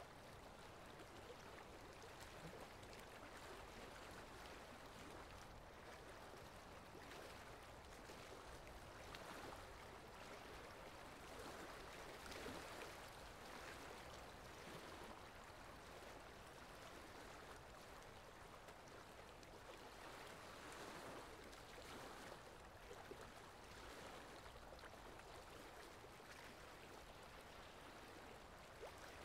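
Faint rubbing of a felt-tip marker drawing lines on paper, rising and falling softly with the strokes, over a low steady hiss.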